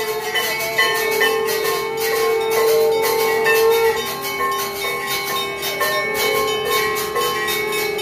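Temple bells clanging rapidly and continuously, stroke after stroke, over a steady held tone.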